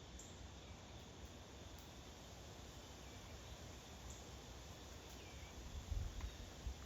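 Faint outdoor ambience: a steady high insect drone with a few short, faint bird chirps. A low rumble underneath gets louder in bumps about six seconds in.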